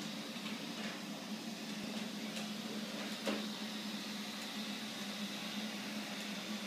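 Neato robot vacuum running across a tiled floor: a steady motor hum with a low tone over an even hiss. A single short knock about three seconds in.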